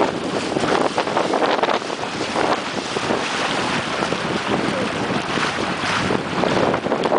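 Strong gusty wind buffeting the microphone, over choppy water lapping and splashing around a wader's legs in shallow water.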